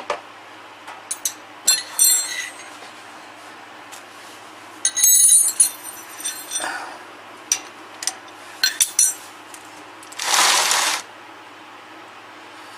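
Metal hand tools and sockets clinking and jingling in separate bursts while someone rummages for the right socket, with a one-second scraping rush about ten seconds in.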